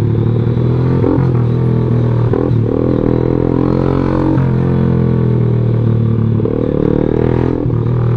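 Yamaha Jupiter MX motorcycle engine running under way, its note dipping and climbing again several times as the throttle is eased and reopened.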